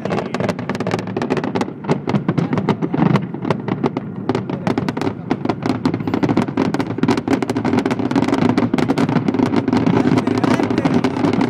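Fireworks going off in quick succession: a dense run of sharp bangs and pops, over a steady low rumble.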